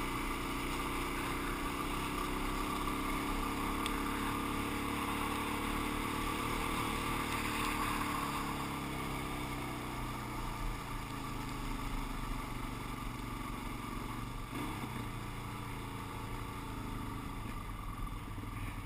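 Suzuki DR-Z400's single-cylinder four-stroke engine running as the bike rides a gravel road, heard from a camera worn by its rider, over a steady rushing noise. The engine note rises and then drops about halfway through as the bike slows.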